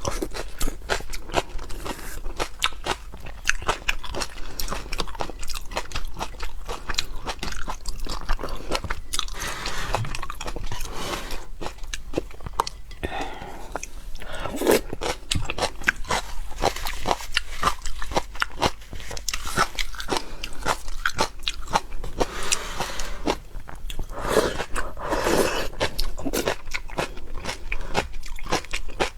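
Close-miked eating of seafood: continual biting, crunching and chewing, with many sharp cracks and clicks.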